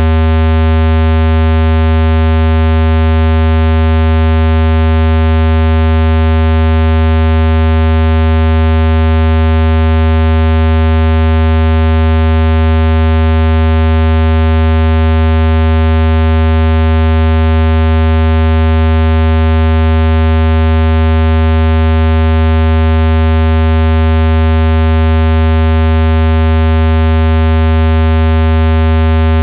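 Loud, steady low-pitched electronic buzz with many overtones, unchanging throughout: a speaker-cleaning tone made to vibrate water droplets out of a phone's speaker grille.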